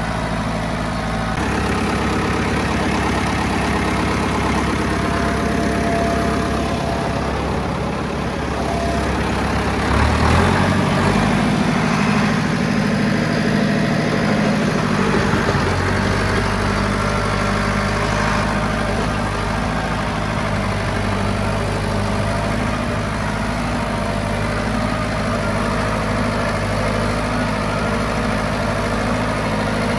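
County 764 tractor's diesel engine running steadily, heard from the driver's seat, its note shifting about ten seconds in with a brief rise in level and changing again around sixteen seconds in as the levers are worked.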